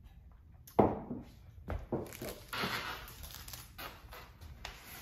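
A sharp knock about a second in, followed by lighter clunks and rustling as an electric bike is taken hold of and handled.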